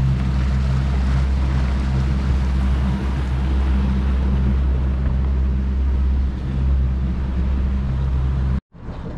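Motorboat engine running steadily under way, with wind and rushing water over it. The sound cuts off abruptly near the end and gives way to a much quieter stretch.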